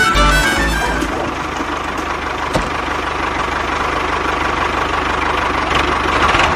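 Music fades out in the first second, then a small engine runs steadily with a fast, even knocking beat.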